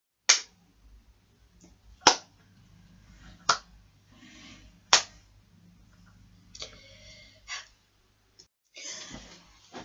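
Four sharp smacks, about a second and a half apart, with faint voices between them.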